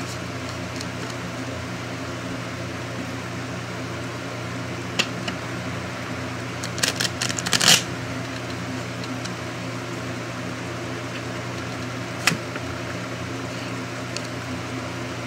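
Playing cards being mixed by hand and set down on a glass tabletop: a few sharp card clicks, one about five seconds in, a quick cluster around seven seconds and one more near twelve seconds, over a steady background hum.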